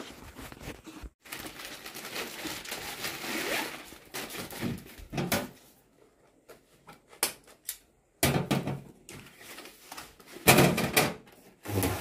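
Handling noises of installation work: rustling and scraping, then sharp knocks and thuds, loudest about eight and ten and a half seconds in.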